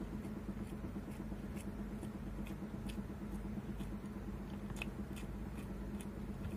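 Close-up chewing of a mouthful of rice and egg, with small wet mouth clicks and smacks coming irregularly, over a steady low hum.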